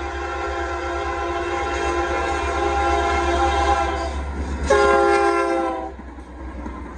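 Union Pacific diesel locomotive's multi-note air horn sounding for the grade crossing as the train approaches: a long, steady blast, then after a brief gap a louder blast of about a second that cuts off sharply. A steady low rumble runs underneath.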